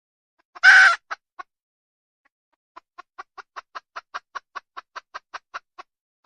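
Desi hen clucking: one loud squawk followed by two short clucks, then after a pause a steady run of about sixteen quick clucks, about five a second.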